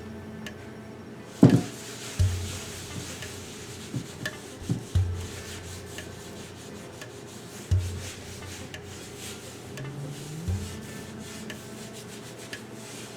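Cast iron skillet being rubbed down with oil by hand: a steady rubbing, with a sharp knock about a second and a half in and a few softer knocks later. Soft background music with a low bass line underneath.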